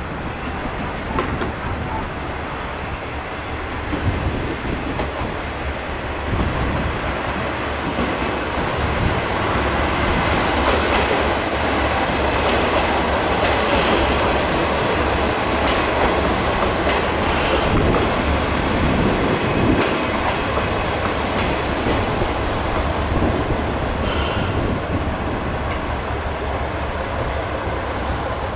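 Diesel train passing, its wheels clattering over the rail joints, with a high wheel squeal through the middle. The sound builds over the first several seconds and is loudest midway through.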